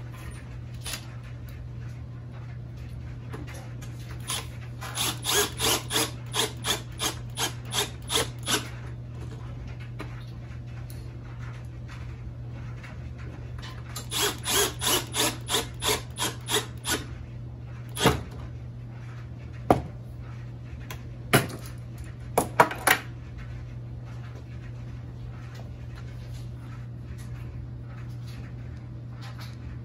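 Milwaukee cordless drill driving pocket-hole screws into a clamped wooden joint in short trigger bursts, two runs of about a dozen bursts each, followed by a few sharp knocks. A steady low hum runs underneath.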